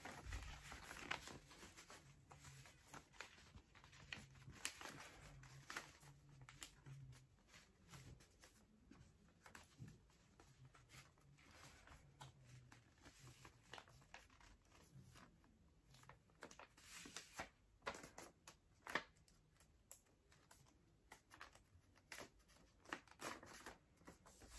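Faint crackling and rustling of printer paper being folded and creased by hand, in short scattered crisp sounds with a few louder ones in the second half.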